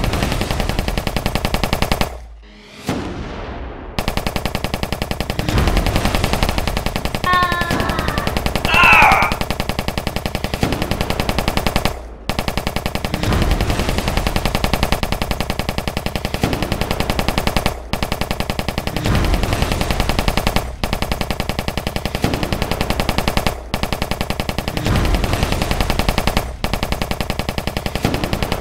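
Machine-gun fire sound effect: long, rapid, continuous bursts with only brief breaks. A short high wavering sound cuts through the firing about eight seconds in.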